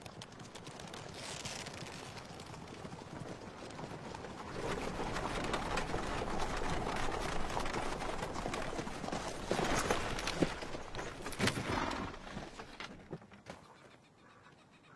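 Horse-drawn chariot: hoofbeats and the rumble of wheels on dry ground, growing louder about four seconds in and fading away near the end.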